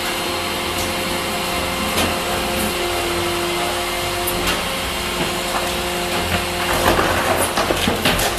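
Rear-loader garbage truck at work: its engine and compactor machinery running with a steady mechanical hum, with scattered knocks and clatter that grow busier near the end.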